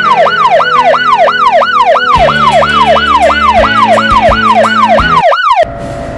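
Electronic police siren sounding in quick falling wails, about two and a half a second, each dropping from high to low pitch; it cuts off suddenly about five and a half seconds in. Faint background music runs underneath.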